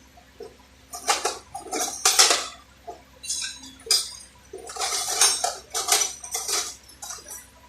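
Metal tools and parts clattering and scraping in a string of irregular bursts, starting about a second in and ending near the end.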